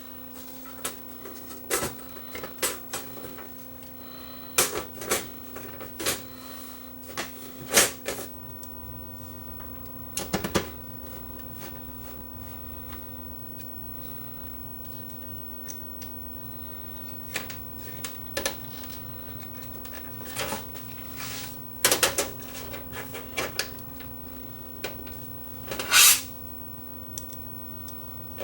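Irregular clicks and knocks of parts being handled and fitted as a Sony EVS7000 video deck is put back together, over a steady hum. The loudest knocks come about two-thirds of the way in and near the end.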